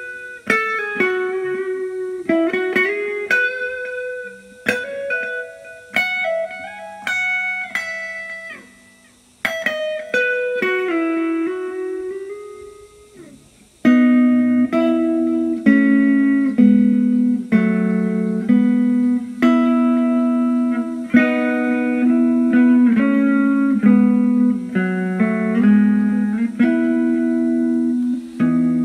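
Fender Stratocaster electric guitar playing blues: single-note lead lines with string bends for about twelve seconds, then a short pause, then a lower riff of picked notes repeated at a steady pace.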